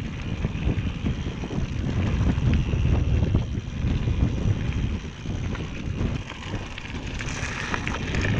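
Wind rumbling unevenly on the camera microphone while riding a mountain bike along a forest singletrack, with a few clicks and rattles from the bike near the end.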